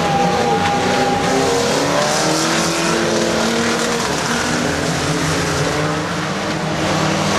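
Several banger racing cars' engines revving as they race, their pitches rising and falling over one another.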